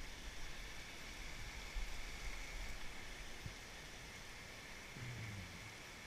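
Steady rushing of a fast creek running over shallow rocky riffles.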